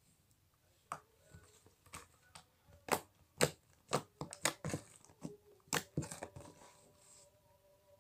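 Fluffy marshmallow slime squeezed and stretched by hand, giving a run of sharp pops and crackles, thickest between about three and six seconds in.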